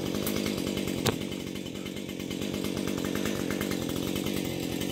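Husqvarna 550 XPG two-stroke chainsaw idling steadily, with one sharp click about a second in.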